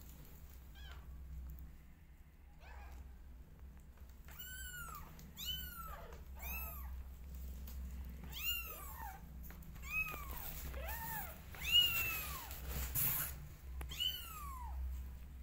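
Young kittens mewing: high, thin calls that rise and fall in pitch, roughly one a second from about four seconds in, at more than one pitch.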